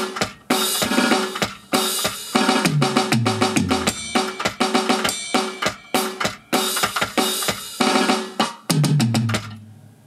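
Roland Octapad SPD-30 played with sticks on an acoustic drum kit preset: a busy drum groove of kick, snare and cymbal hits. It has two fills of drum notes falling in pitch, about three seconds in and near the end, after which the playing stops.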